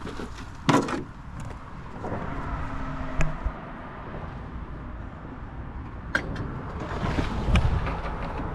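Steady rumble of a motor vehicle, swelling for a moment near the end, with several sharp knocks and clatters, the loudest about a second in.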